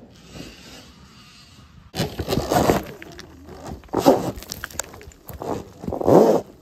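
Surron Ultra Bee electric dirt bike tearing past on a dirt and rock trail: the rear tyre spins and sprays dirt and gravel, with stones clattering, in three loud bursts about two, four and six seconds in.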